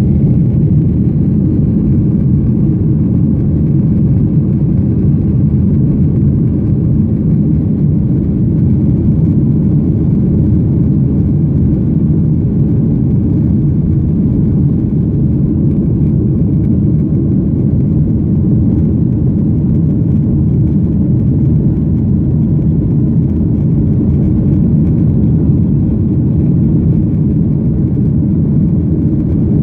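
Airplane engines and airflow heard from inside the passenger cabin during takeoff: a loud, steady low rumble that holds even throughout.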